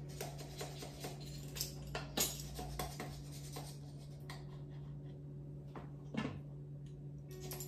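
A metal measuring spoon scooping from a small baking powder tin, giving a scatter of light clicks, taps and scrapes, the sharpest about two seconds in. A low steady hum sits underneath.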